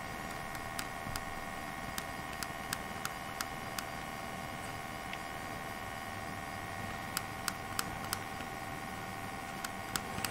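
Small plastic buttons on a vintage Linden digital travel alarm clock clicking as they are pressed one press at a time to step the alarm setting, in a quick run of about eight clicks, then a pause, then a few more. A steady electrical hum runs underneath.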